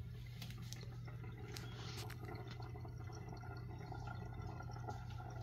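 Water faintly dripping and trickling into the internal hot-water tank of a BUNN Speed Brew Elite (CSB2) coffee maker as the tank fills during first set-up, in small irregular drips, over a steady low hum.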